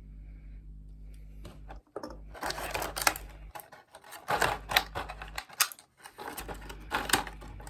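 Small plastic model-kit parts being handled and pressed together, in irregular clusters of clicks and rattles, over a steady low electrical hum.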